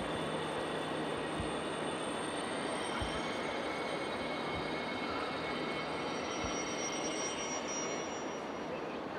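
Steady rushing background noise of a large railway station hall around a standing train, with a low hum and a few faint high steady tones. A few dull low thumps come through at irregular intervals.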